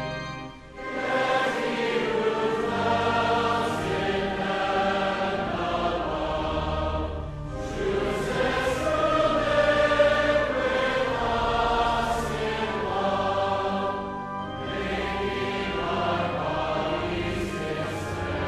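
Recorded hymn: voices singing together over instrumental accompaniment, in phrases with short pauses about every seven seconds.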